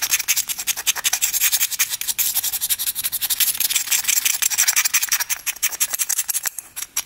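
Quick, repeated scraping strokes as old dried fuel gunk is scraped out of a 1967 Yamaha YL1's carburetor; the deposits come off easily rather than being sticky. The strokes thin out about six seconds in.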